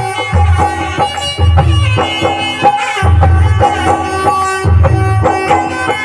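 Live devotional bhajan music in an instrumental passage with no singing. A sustained melody instrument holds steady notes over a hand-drum rhythm, with deep bass beats returning every second or so.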